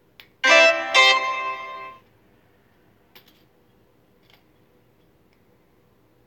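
A short electronic musical chime of two notes, the second about half a second after the first, ringing for about a second and a half before it stops. Later come a few faint clicks of a small nut driver on a brass speaker binding post as its nut is tightened.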